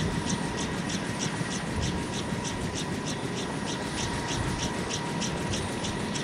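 AH-1 Cobra helicopter running on the ground with its turbine engine whining steadily and its two-bladed main rotor turning slowly, each blade pass giving a swish about three times a second over a low rumble.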